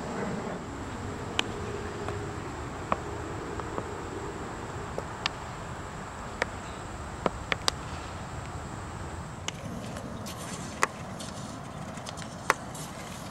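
Outdoor ambience with a steady high-pitched insect drone that gives way, after about nine and a half seconds, to a pulsing high buzz of insects; a dozen or so sharp, isolated clicks and knocks are scattered through it.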